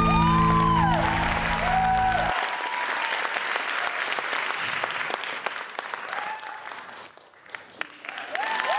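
Solo piano music ends about two seconds in, under an audience applauding and cheering with high whoops. The applause dies away near the end, then the cheering rises again.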